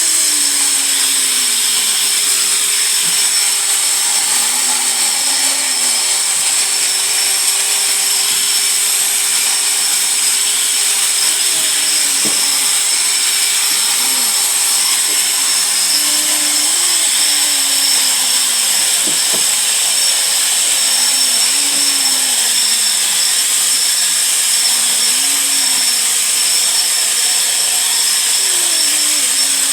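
Terrazzo floor grinding machine running steadily: a loud, even high-pitched whine and grinding hiss, with faint wavering lower tones coming and going underneath.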